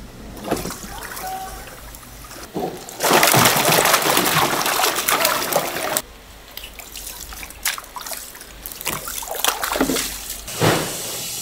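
Water splashing and sloshing as a long-handled net is worked through a tank of live fish and lifted out, with a few seconds of heavy splashing in the middle. Near the end the netted fish are tipped into a tub of water with another splash.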